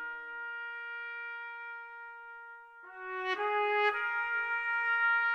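A solo trumpet plays slow, held notes. One long note fades away, and a new phrase starts about three seconds in, stepping between notes.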